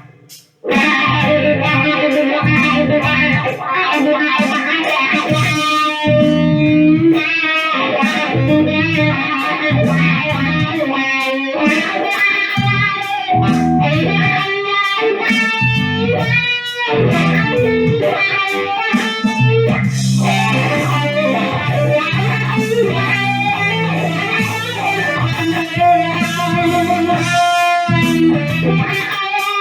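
Electric guitar played through a wah pedal: choppy, loud riffs broken by short gaps, with held low notes in the second half.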